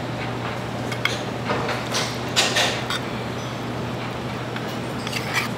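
Steady low hum with scattered light clinks and knocks of dishes and utensils, a few seconds apart.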